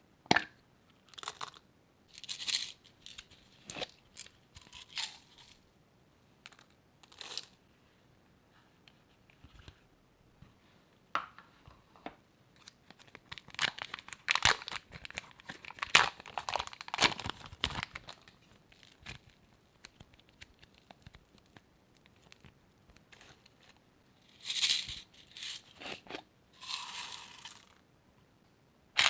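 Crunchy slime being squeezed and mixed by hand, making irregular short bursts of crunching and crackling. The sounds are busiest in the middle and again near the end, with quiet gaps between.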